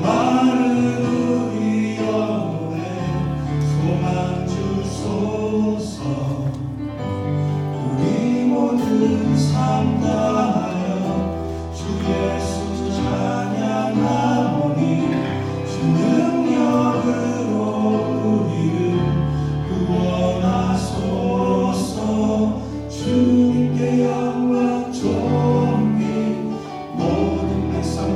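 Church praise team singing a gospel-style worship song as a group, over sustained bass and instrumental accompaniment.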